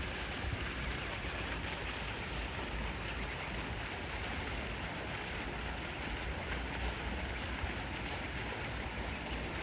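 Steady outdoor background rush with a low rumble underneath, even throughout, with no goose calls standing out.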